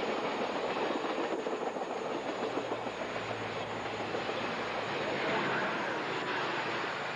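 Stainless-steel passenger cars of a steam excursion train rolling past close by at speed: a steady rush of wheel and rail noise.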